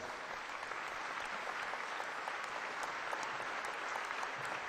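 Audience applauding: many hands clapping in a steady, even wash.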